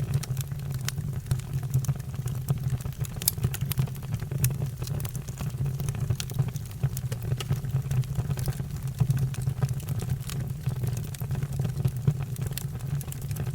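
Fire burning with scattered crackles and pops over a steady low rumble.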